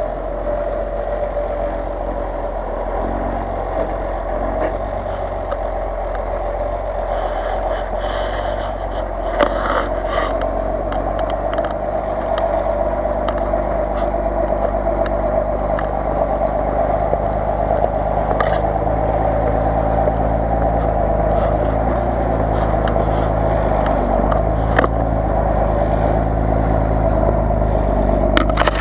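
Off-road 4x4 engine running under load as it crawls through snow, its revs rising and falling, with a few sharp knocks along the way.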